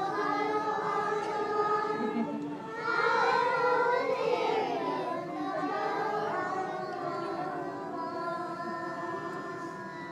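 A kindergarten class of young children singing a song together in unison, holding long notes, growing louder for a couple of seconds about three seconds in.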